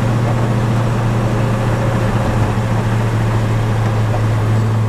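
1971 Chevelle SS454's 454 big-block V8 with FiTech throttle-body fuel injection, running at a steady cruise with a constant low drone.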